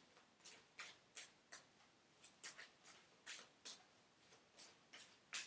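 Faint, quick rustling strokes of tarot cards being shuffled in the hands, about two or three soft swishes a second.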